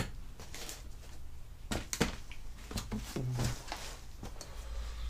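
Irregular clicks and knocks of hand tools being picked up and handled, with some movement, in a small garage.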